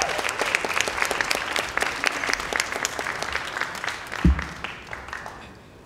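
Audience applauding, the clapping thinning out and fading over the last second or so, with one low thump about four seconds in.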